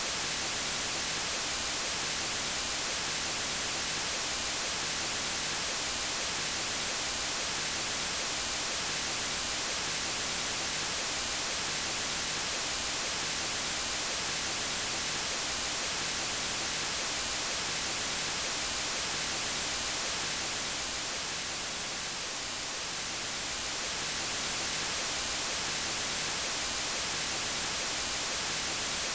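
Steady white noise, an even hiss across all pitches and strongest in the treble. It dips slightly in level for a couple of seconds about two-thirds of the way through.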